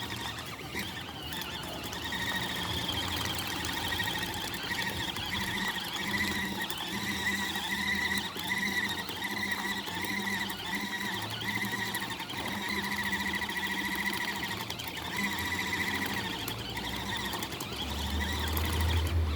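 Mini washing machine's motor running on the spin setting, a steady high-pitched whine that wavers in pitch; a low rumble comes up near the end.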